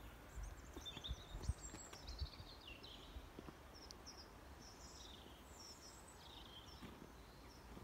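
Small birds chirping in short, high calls scattered throughout, faint, over a low rumble that is stronger in the first two seconds.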